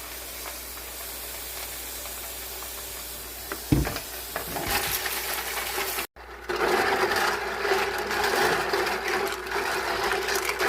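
Water running into a tub of LEGO pieces: a steady rushing hiss that comes back louder after a sudden cut about six seconds in, with a steady hum under it.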